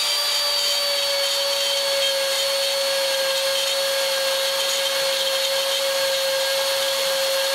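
Bosch GKF 600 trim router spindle running at its fixed 33,000 rpm as a steady high whine while its end mill cuts into 8 mm 6082-T6 aluminium plate. The whine dips slightly in pitch about a second in.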